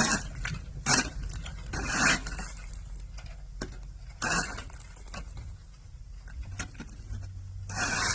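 Broom sweeping snow: short scratchy swishes, about one a second at first, then fewer and further apart.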